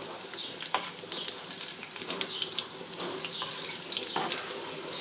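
Cumin seeds sizzling and crackling in hot oil with frying green chillies and garlic, a dal tadka being tempered, with a steady hiss and scattered sharp pops.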